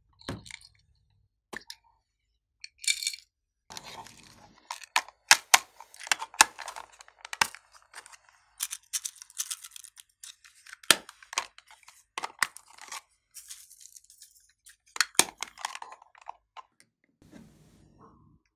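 Small plastic and tin cosmetic cases handled by hand: a dense run of sharp clicks, taps and crackles as the cases are opened and their contents shaken and scraped out onto a tray of slime, with a softer rubbing of the hands near the end.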